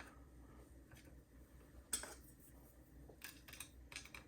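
Faint, sharp clicks and clinks of small metal lock parts being handled as a Schlage deadbolt cylinder is taken apart: a single click about two seconds in, then a quick run of several clicks near the end.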